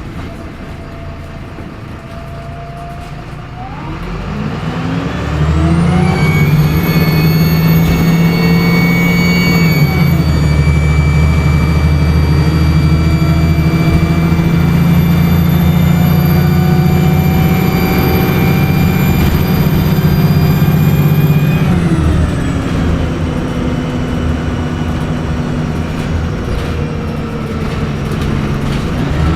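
VDL SB200 Wright Pulsar 2 bus's diesel engine pulling under load, with a high turbocharger whine. The whine climbs in pitch about five seconds in, holds steady for about fifteen seconds, then slides down as the engine eases off, and the whole sound gets quieter.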